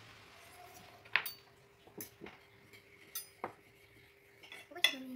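Knives and forks clinking and scraping on dinner plates: a few scattered sharp clinks, over a faint steady hum.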